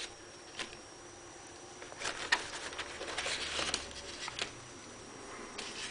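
Cardstock puzzle pieces being slid out of a folded paper puzzle box: quiet paper scraping and light ticks, mostly in a cluster from about two to four and a half seconds in.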